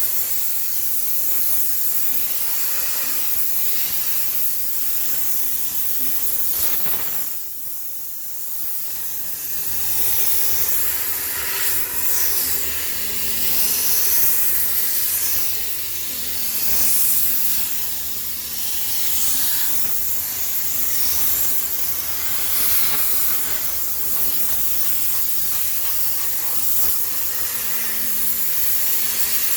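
High-pressure steam sterilizer hissing steadily as it jets steam over a washing machine to sterilise it, dropping away briefly about seven seconds in.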